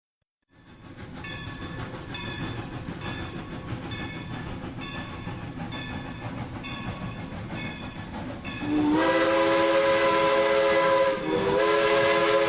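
Train rumbling along with a regular ringing clang about every two-thirds of a second. Then, about nine seconds in, a loud multi-note train horn chord sounds, breaks briefly near eleven seconds and sounds again.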